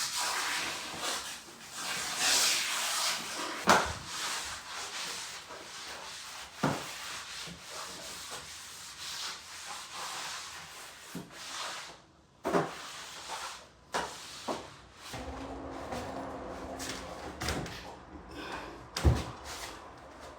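A steady rubbing, scraping hiss with scattered sharp knocks and thuds of things being handled. The hiss fades about halfway through, and the knocks carry on to the end.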